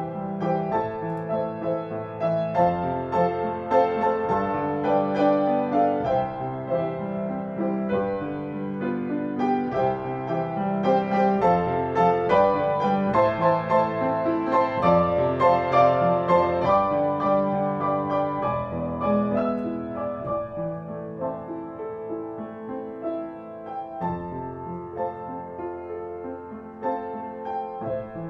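Piano music: a continuous run of notes that grows louder in the middle and softens toward the end.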